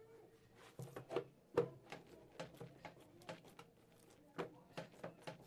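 Irregular soft taps and knocks, two or three a second, of dough being mixed and worked in a bowl.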